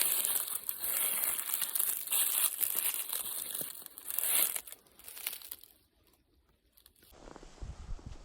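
Dense, crinkly rustling and crunching from a hunter moving through dry cover while stalking. It breaks off about five seconds in, and a low rumble starts near the end.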